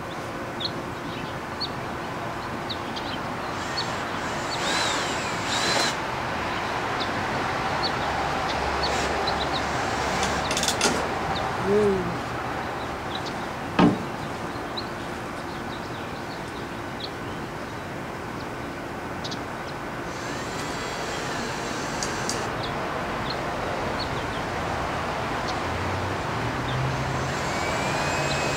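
Steady outdoor background noise with scattered faint high chirps and a few rustles, broken by one sharp knock about halfway through.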